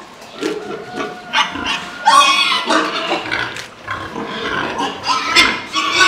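Large white pig squealing and grunting in loud, harsh bursts, the loudest starting about two seconds in and again near the end.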